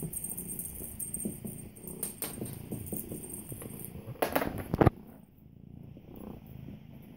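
Kittens playing with a ribbon wand toy on a hard floor: light irregular scuffling and tapping, then two loud rustles about four and a half seconds in.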